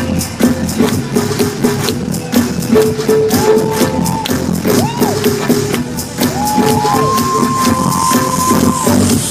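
Dance track played loud through a concert hall's sound system: a fast, steady percussive beat under high tones that slide up and down.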